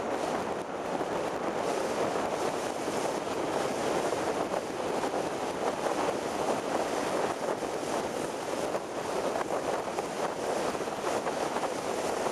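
Wind rushing over the microphone of a vehicle driving along a road at speed, with road noise underneath: a steady, fluttering rush with no clear engine tone.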